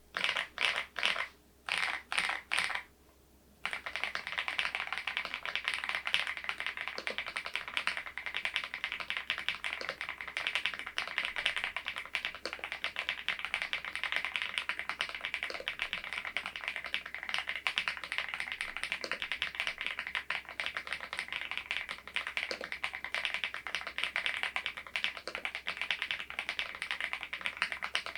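Fast typing on an Epomaker TH80 V2 PRO mechanical keyboard fitted with Kailh Deep Sea switches and ceramic keycaps. It starts with a few separate keystrokes, pauses briefly, then about three and a half seconds in breaks into a dense, unbroken run of rapid clicks.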